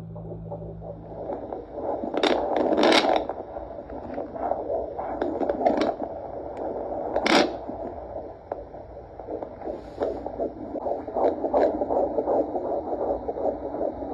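Fetal heartbeat played through an ultrasound machine's Doppler speaker: a rhythmic pulsing whoosh that starts about a second in, after a steady low hum, with several louder swishes along the way.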